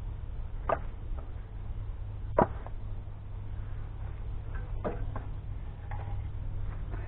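Split firewood pieces knocking together as they are handled and set onto a woodpile: a handful of short wooden clacks, the loudest about two and a half seconds in, over a steady low rumble.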